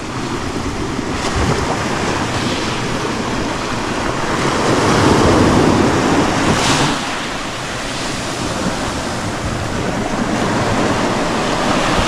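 Sea waves washing on the shore, swelling about halfway through, with wind noise on the microphone.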